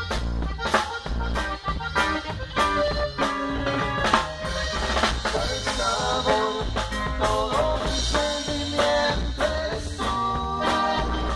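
Live cumbia band playing a tejano-style song with a steady beat: accordion and keyboard melody over bass guitar, congas and timbales.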